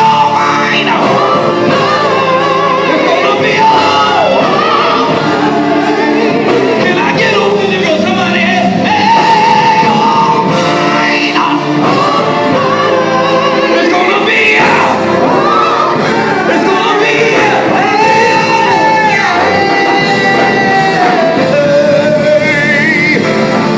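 Male gospel vocal group singing a slow song live with a backing band, the lead voice holding long notes over the group's harmonies.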